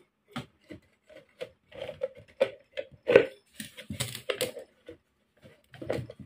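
A thick plastic jar being handled and pushed down between the metal brackets on an angle grinder: irregular clicks, knocks and scrapes of hollow plastic against metal.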